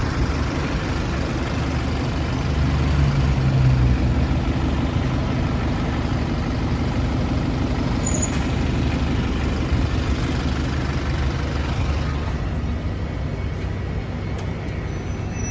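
Double-decker buses running close by: a low, steady engine drone with street traffic noise, swelling louder for a second or two about three seconds in.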